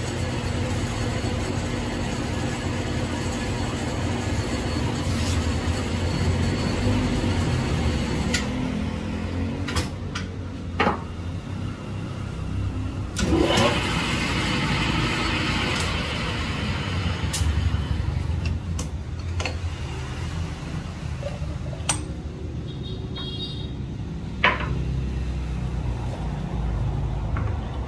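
Small metal lathe running, its three-jaw chuck spinning a silencer part while a tool held in a drill chuck is fed into the bore to trim it for a 1/2-20 thread. There is a steady motor hum throughout, a few clicks, and a stretch of scraping cutting noise about halfway through.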